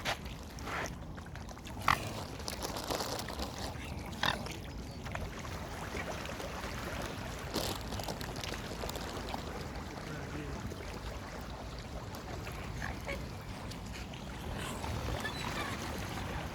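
Waterfowl calling: a few short, sharp calls in the first several seconds and another near the middle, over a steady noisy background.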